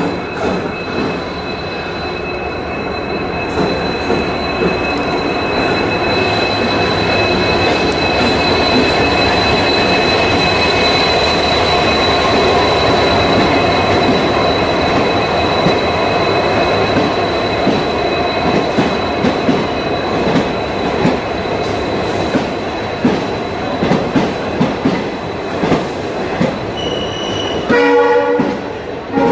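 Train coaches rolling, a dense steady rumble with a continuous high-pitched wheel squeal. A short horn blast sounds near the end.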